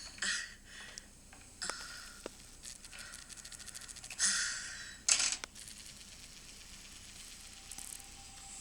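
A few short rustling, scraping handling noises with small clicks between them, the loudest about four and five seconds in.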